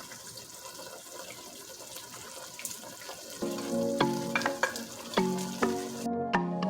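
Lamb frying in a pot with ginger and garlic, a steady soft sizzle with a few small clicks. About halfway through, background music with a run of distinct notes comes in and becomes the loudest sound.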